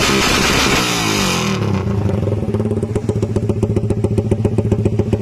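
Suzuki Raider R150's single-cylinder four-stroke engine through a conical aftermarket exhaust. The revs drop about a second and a half in and settle into a loud idle of rapid, even exhaust pulses.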